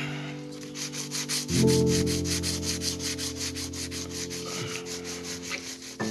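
Sanding block rubbed quickly back and forth over a sculpture's dusty surface, an even scratchy rasp of several strokes a second. Held piano chords of background music come in about a second and a half in.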